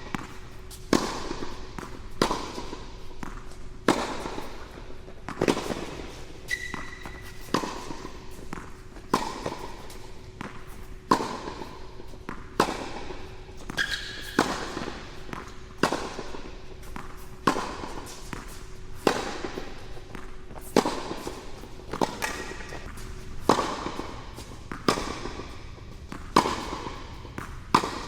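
Tennis rally: a ball struck back and forth with rackets, a sharp pop on the strings about once a second, each often followed by a lighter bounce on the court. Under the hits runs a faint steady hum that stops about 22 seconds in.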